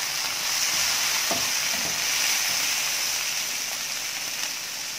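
Green chillies and ground yellow mustard seed sizzling in hot oil in a pan, stirred now and then with a plastic spatula, with a couple of light knocks. The sizzle eases off a little over the last couple of seconds.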